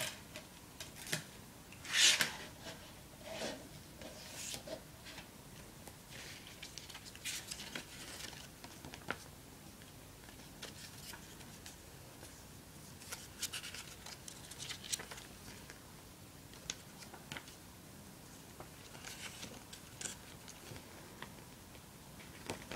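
Paper CD booklet being handled and its pages turned, in short scattered rustles and light taps, the loudest rustle about two seconds in.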